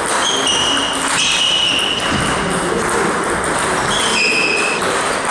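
Table tennis rally: the celluloid ball clicking off bats and the table, with several short high squeaks scattered through it, over the steady noise of a busy hall with voices.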